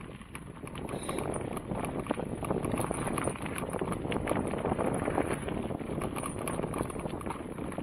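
Mountain bike rolling along a dirt trail: tyres crunching over dirt and fallen leaves, with irregular rattles and clicks from the bike and wind rushing over the microphone.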